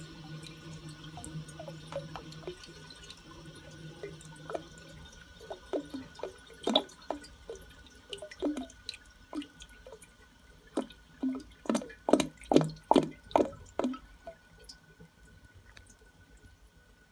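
Toilet gurgling after a flush: an irregular string of bubbling glugs, loudest in a quick cluster about three-quarters of the way through, then dying away. This is the sign of a blocked drain pipe that cannot vent air. Before the gurgling, water runs steadily and stops about five seconds in.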